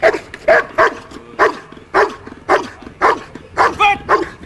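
Belgian Malinois barking repeatedly at a helper holding a bite sleeve at a protection-sport hide, about two loud barks a second.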